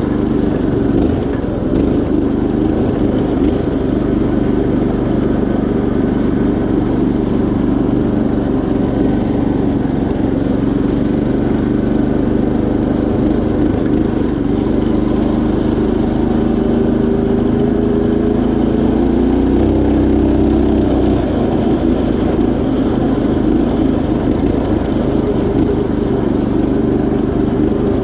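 Predator 212 single-cylinder engine on a Craftsman GT5000 riding mower running steadily under load as the mower drives along. Its note rises a little past the middle and falls back soon after.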